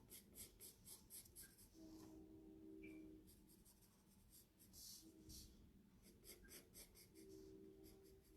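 Faint pencil strokes scratching on paper as lines are drawn: clusters of quick strokes with short pauses between them.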